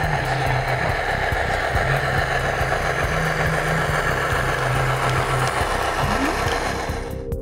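Sound decoder in an HO-scale Athearn SD90MAC-H model locomotive playing a diesel prime-mover sound that runs steadily as the locomotive rolls past. It drops away near the end.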